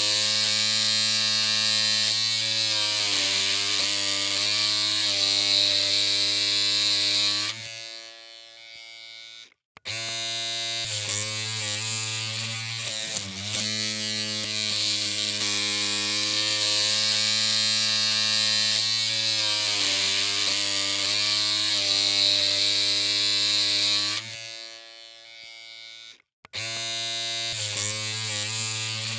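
Electric hair clippers humming with a steady buzz. They are switched off twice, about 7 seconds in and again near the end, and each time start up again about two seconds later.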